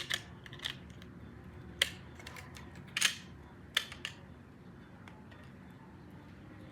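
Plastic LEGO bricks clicking as pieces are handled and pressed onto the model: a handful of sharp clicks, the last about four seconds in.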